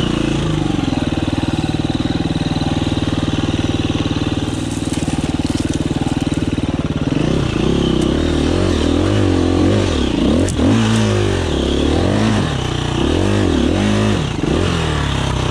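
2019 KTM 350 EXC-F dirt bike's single-cylinder four-stroke engine running at low revs. About seven seconds in it starts revving up and down again and again under short bursts of throttle, with a couple of sharp knocks.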